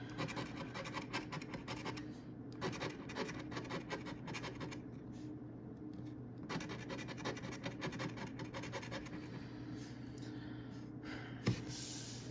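A large coin scratching the latex coating off a scratch-off lottery ticket in quick rapid strokes, in about three spells with short pauses between. A single sharp knock near the end as the ticket is moved.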